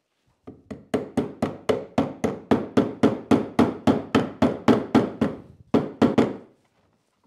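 Mallet striking the end of a steel rod again and again, driving it into a hole in a maple vise jaw: a steady run of sharp knocks at about four a second, with a short break before the last two or three blows.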